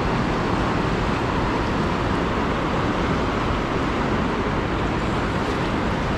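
Steady rushing of the fast-flowing Niagara River current, an even wash of water noise without breaks.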